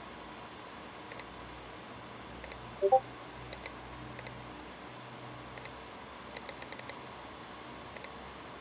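Computer mouse clicking, scattered single and double clicks with a quick run of them near the end, over a faint steady hum. A short electronic chime of a few quick tones sounds about three seconds in and is the loudest thing.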